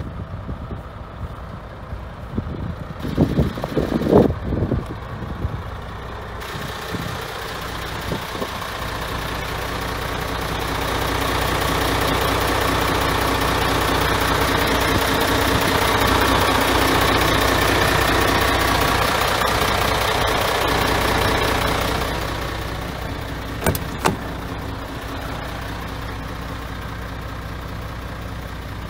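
MAN TGX 26.440 truck's six-cylinder diesel engine idling steadily. A louder rushing noise swells in the middle and fades away, and a few knocks come near the start and again about 24 seconds in.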